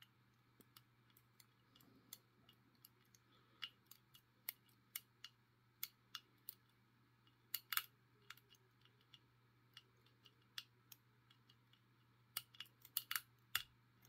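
Faint, irregular metallic clicks of a thin pick wire working the levers inside a vintage Chubb Corvette four-lever padlock under light tension, with a quick flurry of louder clicks near the end as the lock gives and the tensioner turns.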